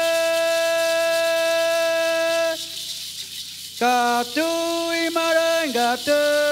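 Guarani chant sung by one voice: a long, steady held note, a brief break about two and a half seconds in, then a run of shorter notes that step down and slide between pitches, with a rattle shaken softly behind.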